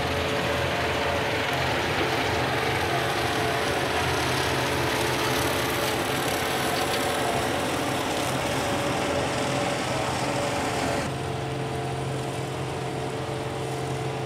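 John Deere 4075R compact tractor's diesel engine running steadily under load, with the PTO driving a RhinoAg TS10 10-foot flex-wing rotary mower through tall grass. About eleven seconds in the sound turns slightly quieter and duller.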